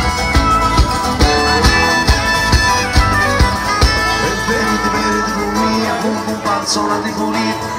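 Live Calabrian tarantella band playing: a fiddle melody with guitar over a steady low beat about twice a second, which drops out about six seconds in.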